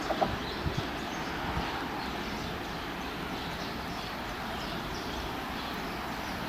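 Steady running noise of a Class 425 electric multiple unit, with a few short knocks in the first second. Faint bird chirps sound over it.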